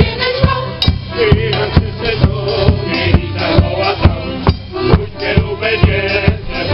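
Polish folk band of violin, accordion, double bass and bass drum playing a lively Rzeszów-region folk tune while a women's choir sings. The bass drum keeps a steady beat about twice a second.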